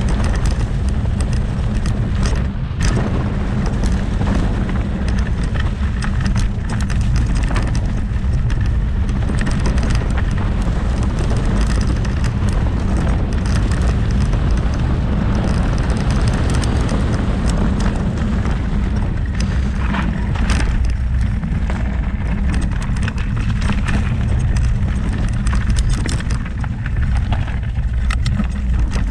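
Wind rumbling on the microphone, tyre noise and frequent clicks and rattles as a Cube Stereo Hybrid 160 full-suspension electric mountain bike runs fast downhill over a dirt, leaf and gravel trail.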